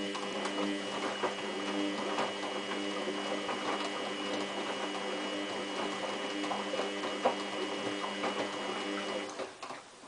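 Samsung WF8804RPA washing machine's drum motor whining steadily as it turns the drum in a rinse, with the wet sleeping bag sloshing and clicking inside. It starts at once and stops sharply about nine seconds in, the end of one tumble.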